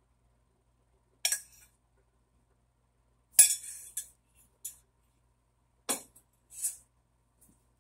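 A metal spoon and a small stainless steel saucepan clinking and knocking: about six separate short clinks. The loudest comes about three and a half seconds in and rings briefly, and a duller knock follows near six seconds.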